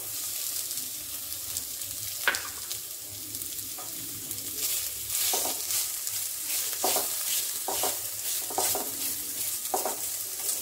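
Raw chicken pieces sizzling in hot oil with onions as they start to sear, stirred with a spatula in short scraping strokes about once a second; the sizzle grows stronger about halfway through.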